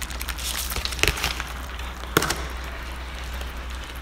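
Plastic clicks and knocks as the food tray of a self-heating hot pot is set into its outer container and the lid pressed on, with two sharper snaps about one and two seconds in. A fine crackling fizz from the self-heating pack reacting in the water runs underneath, mostly in the first second.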